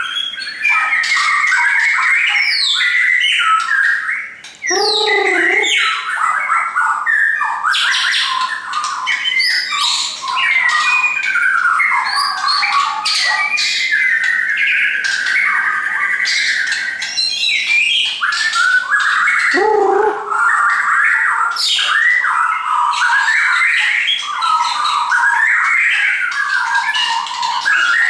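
Shama singing a continuous, varied song of whistles, trills and sharp notes, with a deep downward-sliding call about five seconds in and another near twenty seconds.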